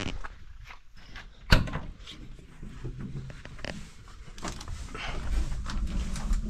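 Clatter and knocks of objects being handled, with one sharp, loud knock about one and a half seconds in, over a low rumble.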